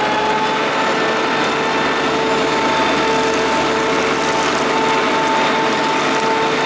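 Madvac diesel ride-on vacuum running, its Kubota D1105 three-cylinder diesel driving the vacuum fan: a steady mechanical drone with a steady whine over it.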